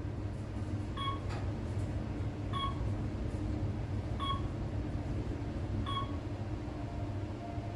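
Otis Elevonic 411M elevator cab travelling with a steady low hum, while a short electronic beep sounds four times, about every second and a half, as the car passes floors on its way up.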